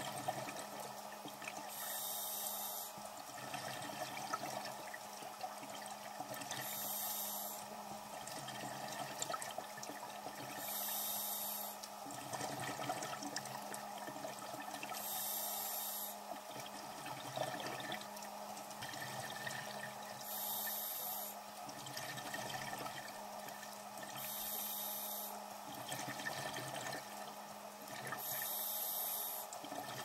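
Scuba diver breathing through a regulator, heard underwater: a rush of exhaled bubbles about every four seconds, seven times, over a steady low hum.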